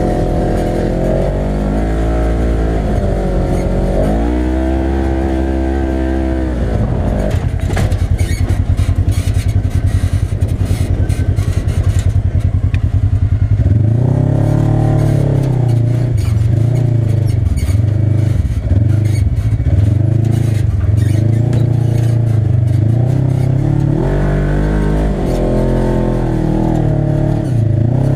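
Polaris RZR side-by-side's engine running under way, its revs rising and falling again and again.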